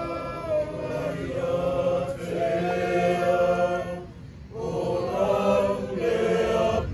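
A group of voices singing a slow hymn in Samoan, in long held notes, with a brief pause for breath about four seconds in.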